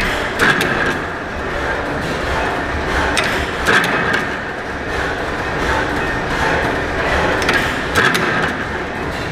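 1869 Otto & Langen atmospheric free-piston gas engine running, with a steady mechanical clatter and a pair of sharp knocks about every four seconds.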